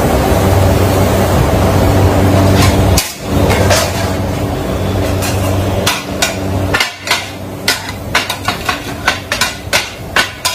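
Kottu roti being chopped on a flat iron griddle: two metal blades clanging against the hot plate in quick, uneven strikes, about three a second and densest from about six seconds in. A steady machine hum fills the first three seconds.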